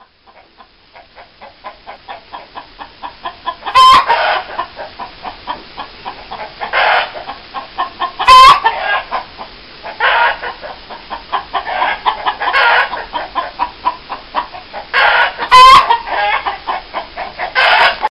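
Marans chickens clucking in a rapid run of clucks, about four a second, that grows louder over the first few seconds. Louder squawks break in every two to three seconds, in the manner of a hen's cackle.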